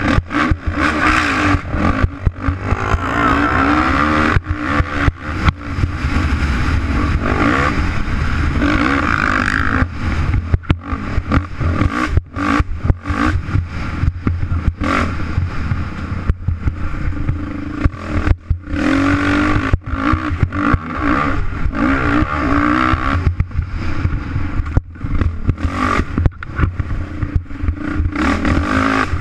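ATV engine revving hard over a rough dirt trail, its pitch rising and falling repeatedly with the throttle. Rattling and knocks from the bumps run through it.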